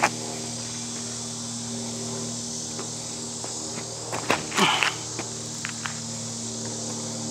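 Steady high drone of insects in the trees over a steady low hum. A few light footsteps on a dirt path, and about four and a half seconds in, a short louder burst as a disc golf throw is made.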